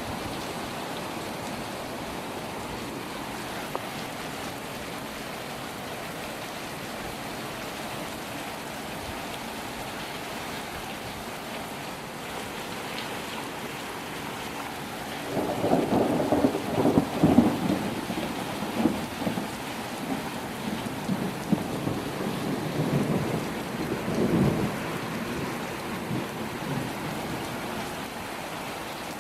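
Thunderstorm: steady rain falling, with a roll of thunder starting about halfway through. The thunder rumbles and crackles for about ten seconds, loudest in its first few seconds, with another sharp crack before it fades back to the rain.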